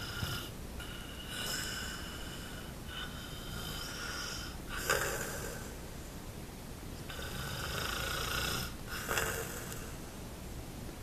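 Sleeper snoring in a slow, repeating rhythm, each snore breath lasting one to two seconds with short pauses between, and a short, sharper snort about five seconds in and again about nine seconds in.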